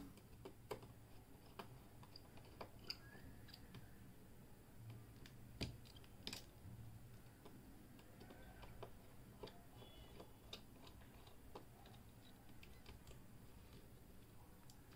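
Near silence with faint, irregular small clicks and ticks of a precision screwdriver working the tiny screws on a OnePlus 3 smartphone's motherboard.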